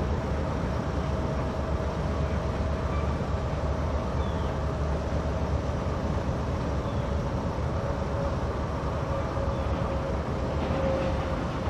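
Diesel-hauled stone train of hopper cars moving slowly during unloading: a steady low rumble with a thin squeal held over it that drifts slightly in pitch.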